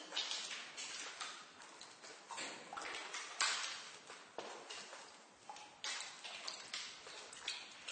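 Water drops falling in a basement at an irregular pace of about one or two a second. Each drip is a sharp plink with an echoing tail.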